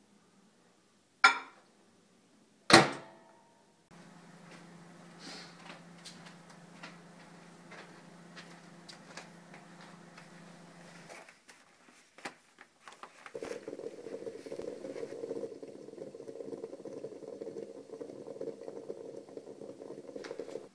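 Two sharp knocks about a second and a half apart, the second louder, as a built-in microwave oven door is shut. A steady low hum with faint taps follows. Later comes a louder, uneven hiss from an aluminium stovetop moka pot steaming on a ceramic hob as the coffee comes up.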